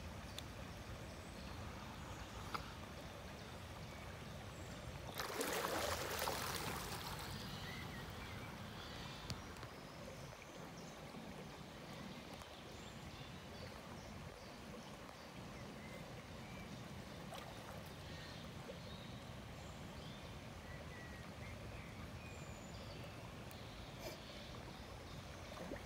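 A dog swimming in a river: faint water sounds over a steady low outdoor background, with a brief louder rush of noise about five seconds in.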